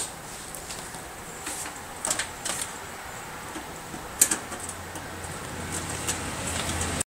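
Scattered small metallic clicks and taps of a magnetized screwdriver and screws being handled during computer assembly, over a steady low hum. There is a sharper click about four seconds in, and the sound cuts off abruptly near the end.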